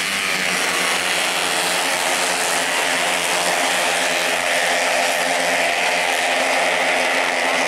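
Several racing automatic scooters running at high revs as a pack passes, a dense, steady high-pitched buzz of many engines at once.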